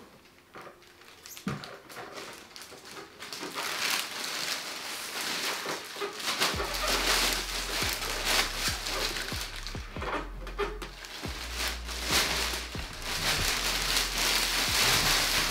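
A clear plastic bag crinkling and rustling as it is handled and pulled off a bust, a busy crackle of irregular small crackles that goes on throughout.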